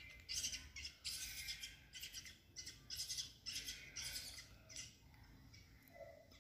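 Baby monkey squeaking: a run of short, high squeaks, about one or two a second, which thin out near the end.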